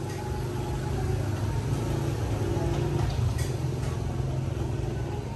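Steady low mechanical hum, with a few faint ticks.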